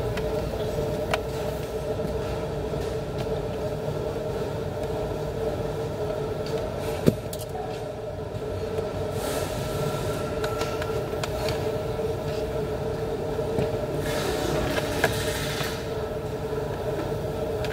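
A steady mechanical hum, typical of a car with the engine or air conditioning running, with a few sharp clicks, the loudest about seven seconds in, and two short hissy rattling stretches, the first around ten seconds in and the second near the end.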